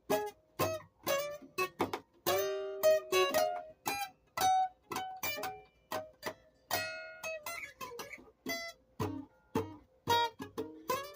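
Plucked string instrument, guitar-like, picking a melody one note at a time, each note ringing and fading, with a couple of fuller strummed chords, about two and seven seconds in.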